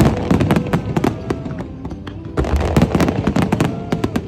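Fireworks display: dense, rapid bangs and crackling in two volleys, the second starting about two and a half seconds in.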